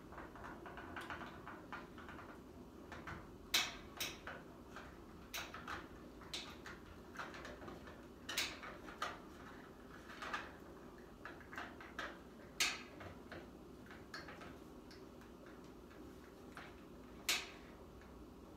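Irregular small plastic clicks and taps as a Mafex Boba Fett action figure's parts are handled and fitted, with a few sharper snaps among them, over a faint steady room hum.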